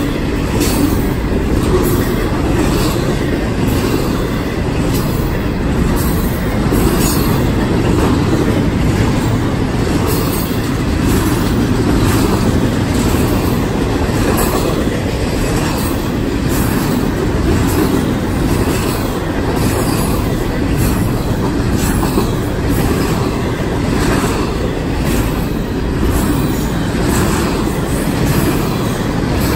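CSX double-stack intermodal freight train's cars rolling steadily past, a constant rumble of steel wheels on rail with faint repeated clicks as the wheel sets cross rail joints.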